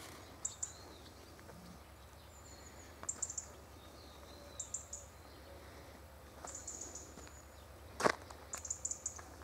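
Small birds giving quick clusters of short, high chirps every second or two over a faint steady low hum. About eight seconds in, a single sharp knock stands out as the loudest sound.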